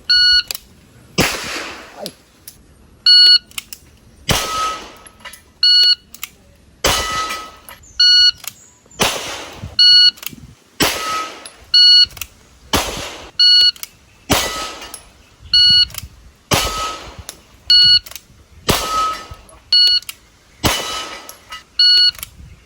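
Pistol fired in a steady string, about one shot a second, with the steel target plates ringing sharply when hit.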